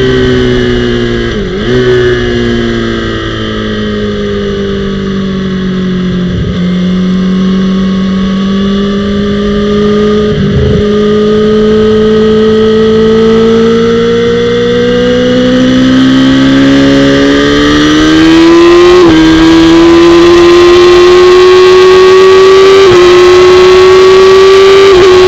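Honda CBR1000RR (SC59) inline-four engine at track speed, heard onboard: revs fall as the bike slows into a corner and hold low through it, then the engine pulls hard out of the corner, its pitch climbing steadily, with short breaks in the note near the end as it shifts up.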